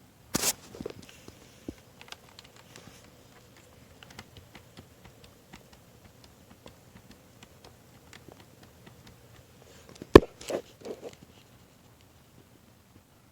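Handling noises: scattered light clicks and taps of small objects being moved, with a sharp clatter at the start and a loud knock about ten seconds in, followed by a few softer thuds.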